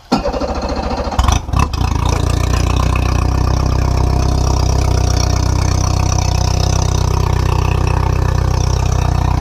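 Mercury 60 hp four-stroke outboard on flushing muffs being started: the starter cranks it for about a second, it catches with a brief rev, then settles into a steady idle. It is warming up so the oil will drain easily for an oil change.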